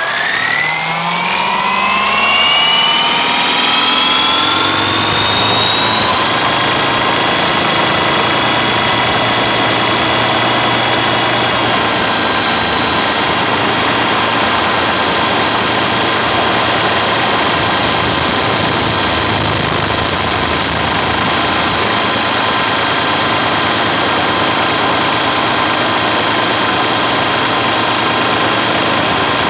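Helicopter on pontoons spooling up: a whine rises in pitch over about six seconds, then holds as a steady high whine.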